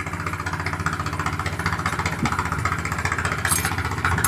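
An engine running steadily at idle: a fast, even, pulsing rumble that does not change. A short sharp noise cuts through it about three and a half seconds in.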